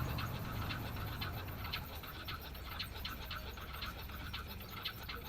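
Light ticking and clicking of small tools and parts being handled during a phone repair, a few ticks a second over a low hum that fades about two seconds in.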